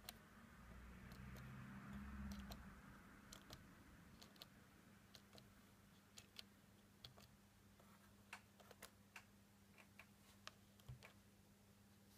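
Faint clicks of the plastic push buttons on a Blaupunkt New York SQR 05 car radio-cassette as they are pressed one after another, a dozen or so irregular clicks over a low steady hum. A faint hiss and rumble swells and fades in the first few seconds.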